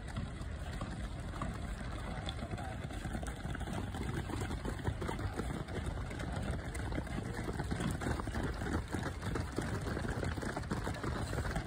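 Wind rumbling on the microphone, with the quick, irregular patter of a pack of runners' footsteps on a synthetic track, thickest in the middle and later part.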